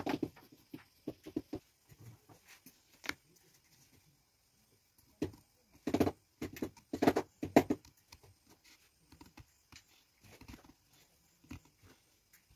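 Scissors cutting a sheet of paper along a curved line, with paper rustling as it is handled: irregular snips and crinkles, the loudest run of them about six to eight seconds in.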